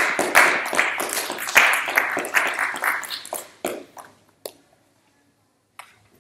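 Small audience applauding, dying away after about four seconds, followed by a few faint knocks.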